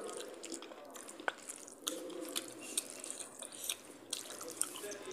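Fingers mixing rice and dal on a steel plate: irregular small wet clicks and squishes, along with close-miked chewing.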